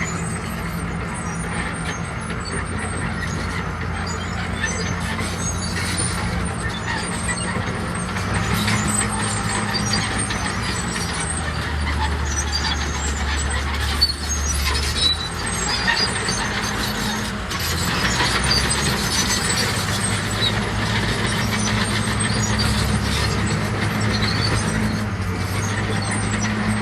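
Heavy diesel engines of a bulldozer and dump trucks running under load, their engine note stepping up and down several times. Clatter and a few sharp knocks ride over the engines.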